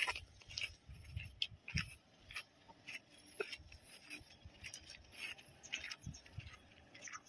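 Footsteps crunching on a gravel yard at a walking pace, with a low rumble of wind on the microphone now and then.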